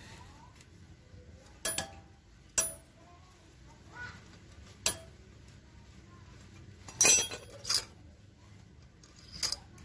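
Metal tools and engine parts clinking against a motorcycle engine's aluminium casing as it is dismantled: a series of sharp, separate clinks at uneven intervals, the loudest a cluster about seven seconds in.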